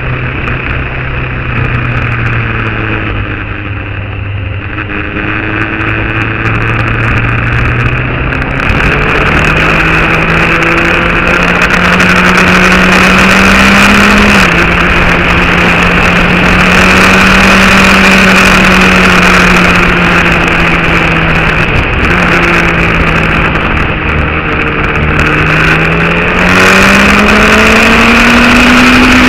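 Motorcycle engine running under way, its speed rising and falling slowly, with a sudden drop in pitch about halfway through and a rise again near the end, over a steady rushing noise.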